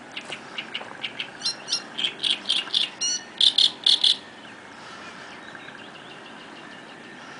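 A bird singing a series of short, sharp repeated notes, about four or five a second, that grow steadily louder and end abruptly about four seconds in.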